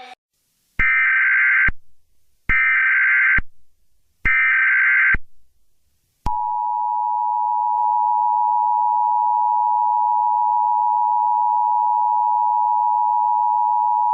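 Emergency Alert System header: three short bursts of warbling digital data tones, then, about six seconds in, the steady two-tone attention signal (853 and 960 Hz), which sounds for about eight seconds. It announces an emergency alert message.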